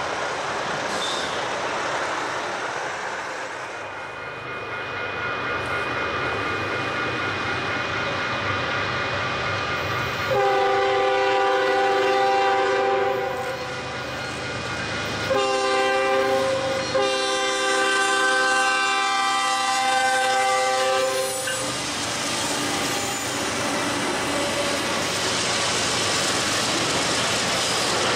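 Canadian National freight locomotive's air horn sounding a chord in a series of long blasts for the grade crossing, the last held about four seconds. Before the horn, a train's rumble fades; after it, the passing train's wheels and cars rumble and clack by.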